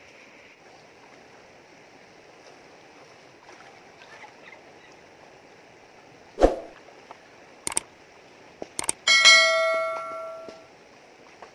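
Subscribe-button animation sound effects: a few sharp clicks, then a notification-bell ding that rings out and fades over about a second and a half. Underneath is the steady rush of a shallow, rocky river.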